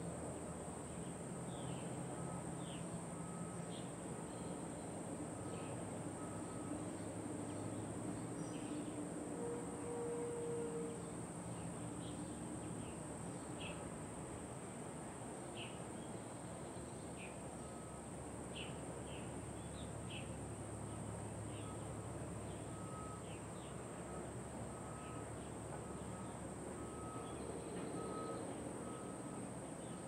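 Backyard ambience: insects, like crickets, droning steadily on one high note, with scattered short bird chirps and a low background hum.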